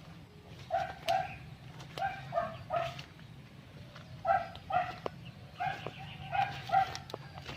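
Short, high-pitched animal calls repeated about a dozen times, often two in quick succession, over a steady low hum.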